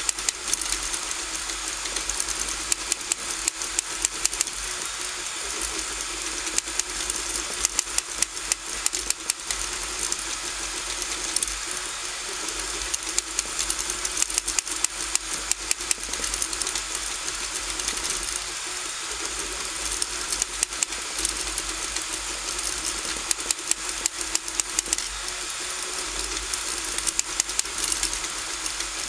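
RigidBot 3D printer running a print: a steady motor hum and hiss, overlaid with rapid, irregular clicking and rattling.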